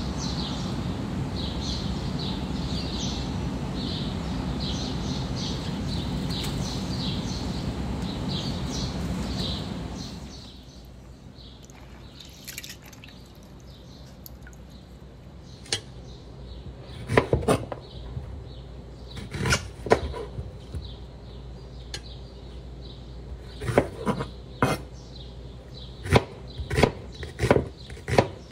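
A steady noise with a faint repeating high chirp for about ten seconds, which stops abruptly. Then quiet kitchen sounds with a few scattered knocks, and near the end a knife chopping an onion on a wooden cutting board, a sharp knock on the board about twice a second.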